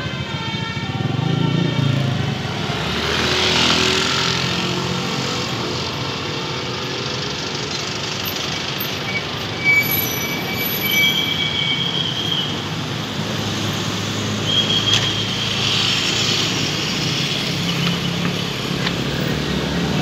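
Road traffic: vehicle engines running close by with road noise. Short, steady high tones come in about halfway through and again a little later.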